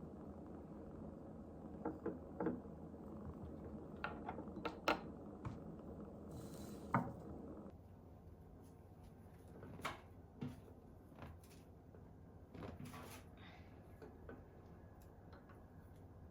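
Scattered light taps, clicks and knocks of small objects being handled and set down in a quiet room, with a short soft swish about six and a half seconds in.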